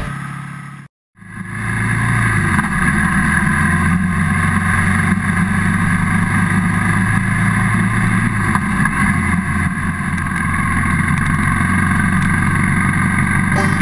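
Motorcycle engine running steadily under way, picked up by a camera mounted on the bike, with wind and road noise over it. It cuts in after a short gap about a second in, and the engine note steps down twice, near the start and about two-thirds of the way through.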